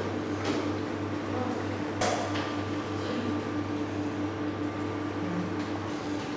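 Steady electric hum of running kitchen machinery, with a sharp metallic clack about two seconds in from a stainless deep-fryer lid being handled. The low part of the hum drops away near the end.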